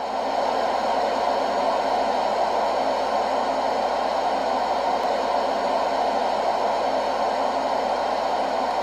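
A steady hiss of static-like white noise, switched on suddenly and held level without change.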